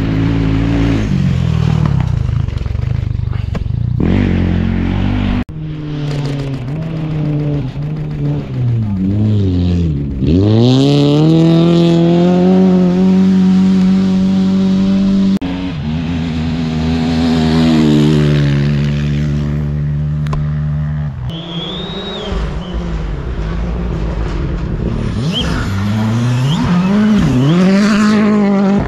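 Rally car engines at full throttle on a gravel stage, heard across several abruptly cut clips. The engine notes rise and fall with gear changes and pass-bys, with one car sweeping past about ten seconds in, its pitch dropping as it goes by.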